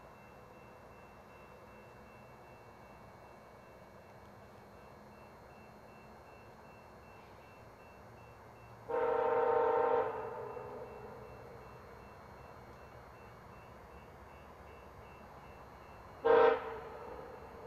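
Approaching diesel locomotive's air horn: one blast of about a second, then a short toot about seven seconds later, both with a chord of several pitches.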